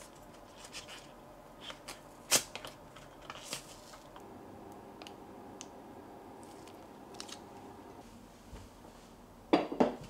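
Small kitchen handling sounds while food is prepared: scattered light clicks and rustles of a plastic pouch, one sharp click about two seconds in, and a louder clatter near the end.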